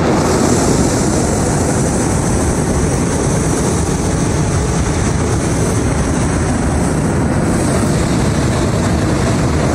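Hot air balloon's propane burner firing: a loud, steady rush of noise.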